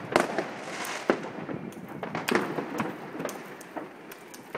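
Fireworks and firecrackers going off: a run of bangs and cracks at irregular intervals, several a second at times, some sharp and close, others fainter.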